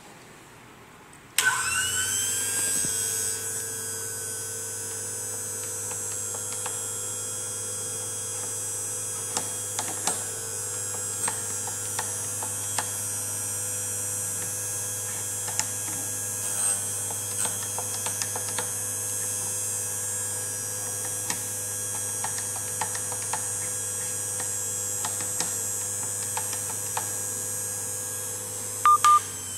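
Cuttermasters CR-3 corner radius grinder switched on about a second and a half in: its electric motor spins up, then runs steadily with a hum and a high whine while the end mill's corner is swept against the grinding wheel, with scattered light ticks throughout. Two sharp clicks come near the end.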